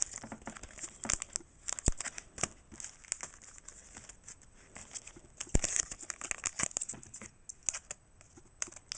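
Foil booster pack wrapper crinkling and tearing open, with many short, sharp crackles.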